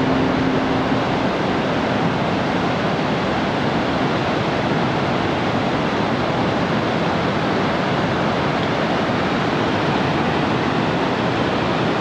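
Multi-tiered river waterfall in flood after a typhoon: a steady, unbroken rush of heavy water pouring over the falls.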